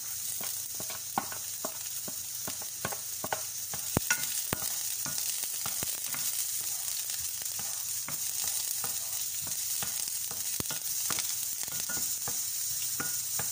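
Flour-dusted beef chunks frying in hot oil in a pan: a steady sizzle with many crackles and pops, a few louder pops about four seconds in. Near the end chopped garlic is stirred around the pan with a wooden spatula.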